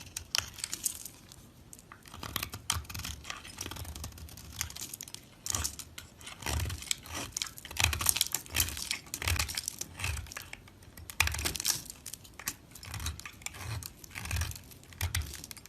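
A knife cutting through dry soap: dense, crisp crackling and crunching in irregular clusters, with dull low knocks roughly once a second.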